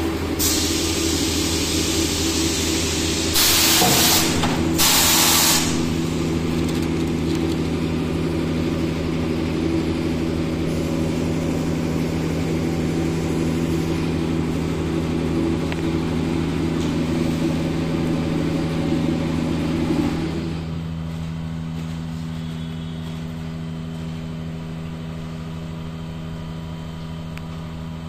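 Plastic nursery-tray forming machine running with a steady hum made of several tones. Two loud bursts of air hiss come about four and five seconds in. About twenty seconds in, part of the hum stops and the sound drops a little.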